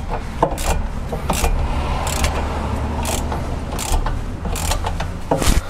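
Hand ratchet working a tight, slightly rusted hub-bearing bolt loose, its pawl clicking in short bursts on each back-swing, roughly once a second, over a steady low hum.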